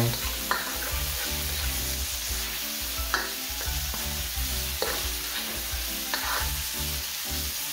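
Shrimp and peppers sizzling in a wok with a steady frying hiss, while a plastic spatula stirs them around the pan, with a few louder scrapes.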